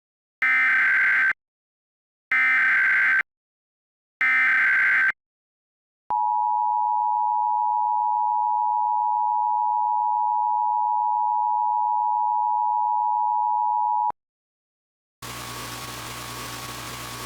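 Emergency Alert System broadcast tones. Three short bursts of SAME digital header data, about a second each and two seconds apart, are followed by the two-tone attention signal (853 and 960 Hz), a steady dual tone held for about eight seconds that cuts off sharply. About a second later a low steady hiss and hum begins, quieter than the tones.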